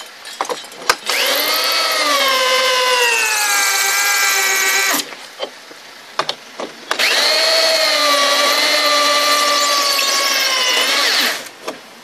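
DeWalt rotary hammer drill spinning a hole cutter into foam insulation board, run twice for about four seconds each. Its motor whine rises as it spins up, then dips in pitch and holds lower as the cutter bites. A few short clicks come between the runs.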